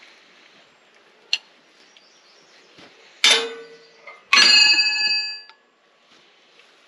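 Steel wrenches clanking against each other and the metal fittings: a light click, then two loud clanks about a second apart, the second one ringing for about a second.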